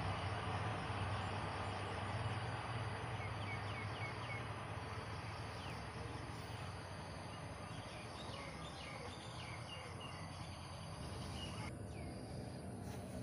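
A distant diesel train's low steady rumble, slowly fading as it moves away. Short high chirps sound in small groups over it.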